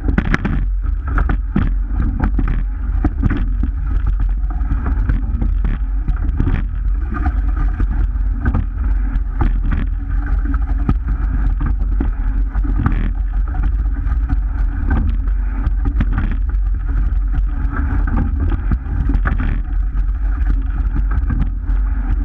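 Rowing shell under way: a steady rush of water along the hull and wind on the microphone, with repeated knocks from the oars and rigging spaced a second or two apart as the crew rows.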